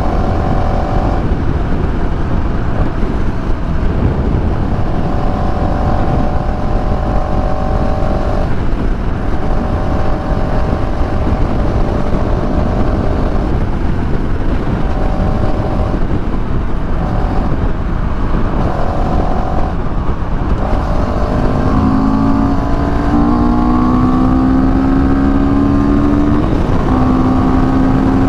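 CFMoto CL-X 700 parallel-twin motorcycle engine running under way, with heavy wind rush over the microphone. For most of the clip the engine note holds fairly level in stretches. About two-thirds in, a deeper note takes over and climbs gradually as the bike accelerates.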